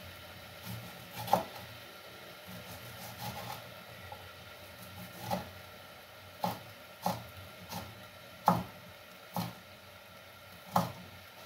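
Kitchen knife chopping a red onion on a wooden cutting board: sharp, irregular knocks of the blade against the board, sparse at first and coming closer together, roughly one a second, in the second half.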